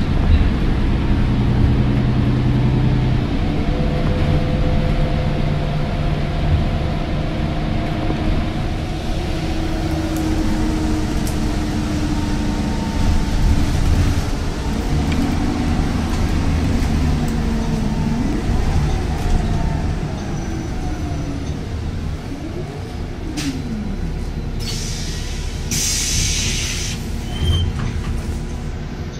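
Road and engine noise of a moving vehicle: a steady low rumble with faint whining tones that rise and fall, and a short burst of hiss near the end.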